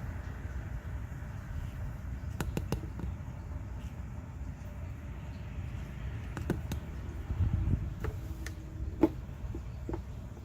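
A few sharp metal clicks and knocks from brake parts and tools being handled, the loudest near the end, over a steady low rumble.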